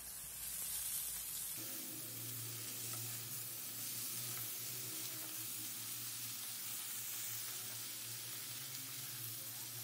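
Spinach and chopped vegetables frying in a nonstick kadhai: a soft, steady sizzle as they are stirred with a spatula. A low steady hum comes in about a second and a half in.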